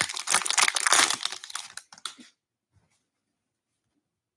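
Foil wrapper of a 2021-22 Upper Deck Series 2 hockey retail pack being torn open and crinkled by hand: a dense crackling for about the first two seconds.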